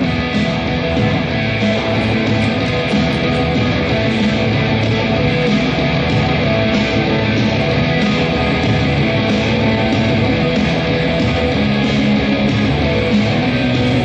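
Loud guitar-driven rock music with a steady beat.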